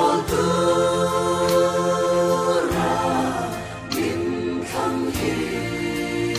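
Mixed choir of men's and women's voices singing a Christian song in harmony, holding long chords that change every second or two.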